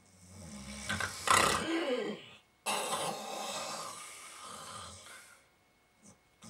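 A person snoring: a loud snore about a second in, then a longer one that fades away.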